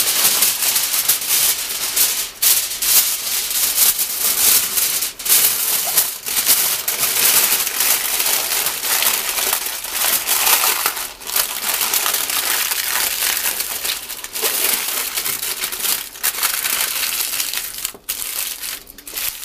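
Aluminium foil crinkling and crumpling as hands fold and press it around a piece of meat, wrapping it in two layers. An irregular crackly rustle with brief pauses.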